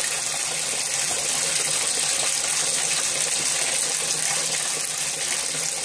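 Bathtub tap running steadily, water pouring into the tub as it fills.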